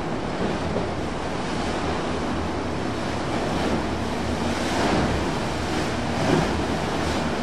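Churning, splashing water from a boat's hull and wake in choppy current, with wind on the microphone. Under it runs the steady low drone of the Sea Fox's Yamaha 150 outboard.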